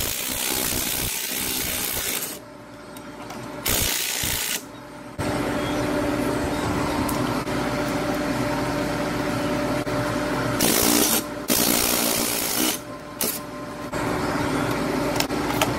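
A power tool whirring steadily in long runs, dropping away briefly about two and a half seconds in, again near five seconds and once more near thirteen seconds. It is turning the screw of a C-frame press to push a U-joint bearing cup out of a rusty driveshaft yoke.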